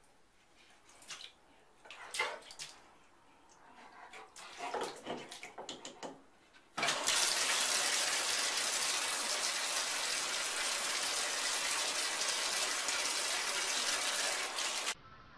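Scattered clicks and knocks as a dog noses at a bathtub's faucet handle, then, about seven seconds in, water starts suddenly from the tub spout and runs steadily into the bathtub.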